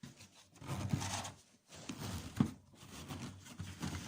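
Rustling and scraping handling noises with a few knocks, the loudest a sharp knock about two and a half seconds in.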